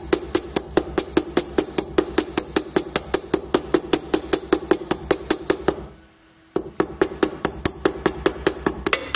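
A small hammer taps rapidly and evenly on the steel shell of a WWII German M35 helmet, working at the rust spots, about five light, ringing taps a second. There is a short pause about six seconds in.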